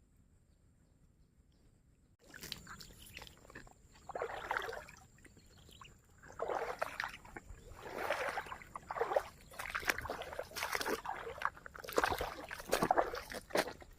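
Water splashing and sloshing in short, irregular bursts, about seven of them after a quiet opening couple of seconds, with a faint steady high-pitched tone behind.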